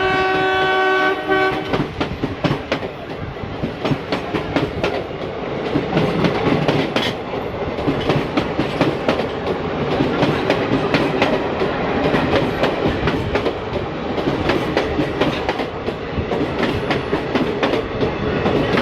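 ALCO WDM3A diesel locomotive's horn sounds a steady blast that cuts off about a second and a half in. After it comes the rumble of the moving train, with a dense run of irregular clicks from wheels over rail joints.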